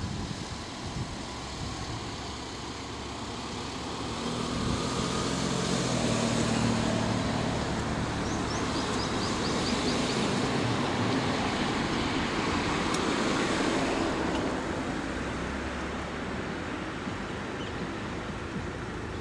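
Road traffic: a car's engine and tyres on the road swell as it passes close by, loudest through the middle, then fade back to a steady road hum.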